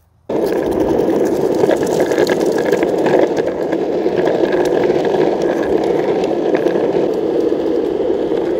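Steady rolling rumble of wheels on asphalt, mixed with wind on the microphone, while a husky pulls the rider along the road. It starts abruptly just after the start and holds even.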